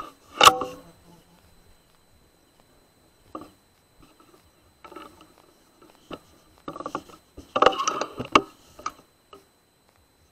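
A single sharp air rifle shot about half a second in, followed by scattered clicks and rustles of the rifle being handled, with a quick cluster of louder clicks near the end.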